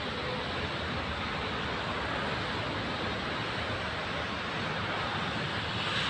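Steady rushing ambient noise with no distinct events or pitched sound, of the kind given by wind on the microphone and distant traffic.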